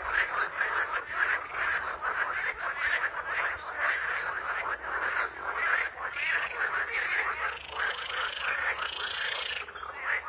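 A dense chorus of many frogs croaking rapidly over one another. Near the end a higher call rises and falls for about two seconds.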